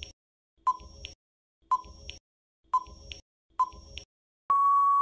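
Countdown timer sound effect: short beeps about once a second, then one longer, steady beep near the end, the cue that the time to answer is up.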